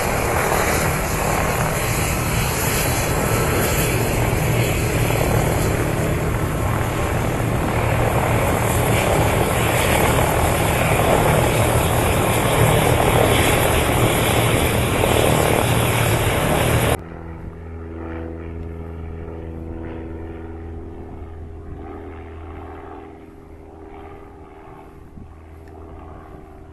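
Aircraft engine running loudly: a dense roar with a steady low hum and a thin high whine. About two-thirds of the way through it cuts off abruptly, leaving a much quieter steady hum that fades.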